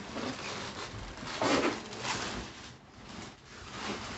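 Rubbing and rustling as a freshly unboxed mattress is handled, with louder scrapes about a second and a half and two seconds in.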